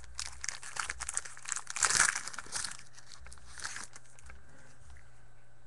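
Trading card pack wrapper being torn open and crinkled by hand, loudest about two seconds in, stopping a little past halfway.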